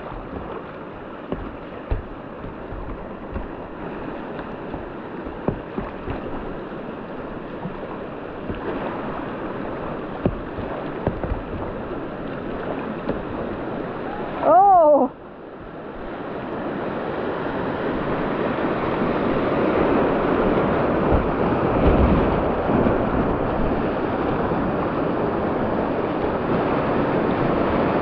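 Rushing river water around a whitewater kayak, growing louder through the second half as the boat runs into a rapid, with scattered light knocks in the first half. About halfway through, a brief voice call.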